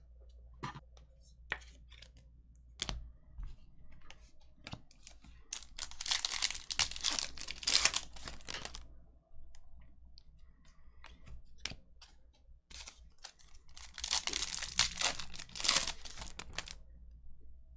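Trading card pack wrappers being torn open and crinkled, in two bouts of a few seconds each, with scattered light clicks in between.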